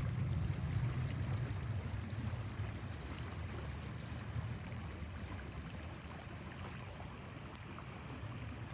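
River water flowing past a stony shore: a steady rushing with a low rumble, fading gradually.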